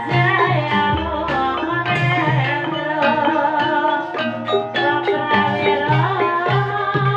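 Live Javanese gamelan music for an ebeg hobby-horse dance: kendang hand drums keep the beat under interlocking struck melodic percussion, with a line gliding in pitch now and then over the top.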